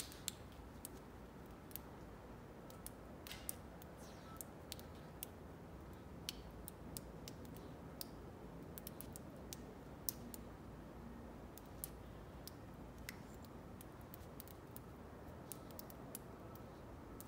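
Faint, irregular sharp clicks and crackles, several a second at times, over a low steady outdoor background.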